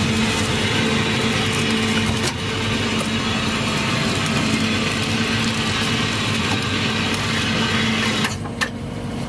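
Small fishing boat's engine and hydraulic net hauler running steadily while hauling in a gillnet: a constant low drone over a wash of machinery and water noise. The drone dips briefly near the end.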